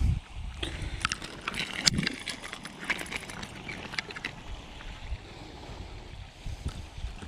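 A dull knock on the kayak, then about three seconds of light splashing and clicking. A small sunfish on a fly line is being fought and the line stripped in by hand, before things settle to a low water hiss.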